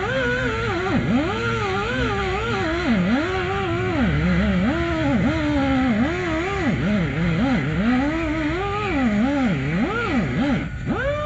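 Air-powered grinder with a grinding stone, running and grinding into the steel of the trailer's jack-mount hole. Its pitch repeatedly sags and recovers as the stone bites and eases off, over a hiss of air. It cuts out for a moment near the end and starts again. It is short of power on air from a small portable compressor.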